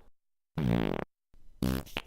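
Fart sounds: a pitched blast about half a second long starting about half a second in, then after a short silence another one beginning near the end.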